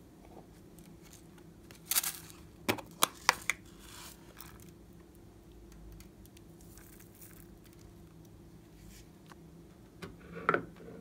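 A hand handling and sprinkling confetti over slime in a glass dish: a crinkling rustle about two seconds in, four sharp clicks over the next second and a half, then faint rustles and a single knock near the end.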